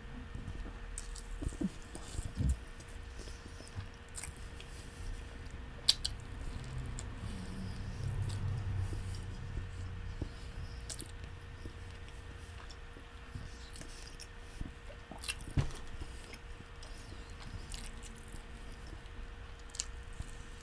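Close-miked chewing of a soft-bread turkey and mayo sandwich: moist mouth noises with scattered sharp lip and tongue clicks, and a fresh bite taken near the end. A faint steady tone runs underneath.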